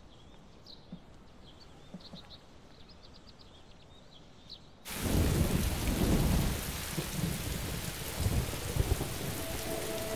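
Faint quiet ambience with a few bird chirps, then about five seconds in a sudden switch to heavy rain pouring, with deep rumbling thunder. A few held music notes come in near the end.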